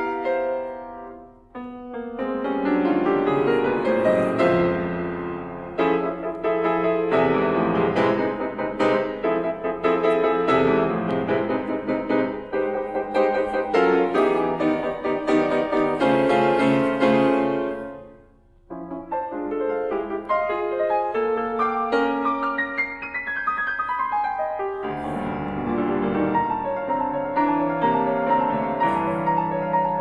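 Grand piano playing contemporary classical music: dense chords and runs that die away almost to silence about a second and a half in, and again around eighteen seconds in, before the playing starts again.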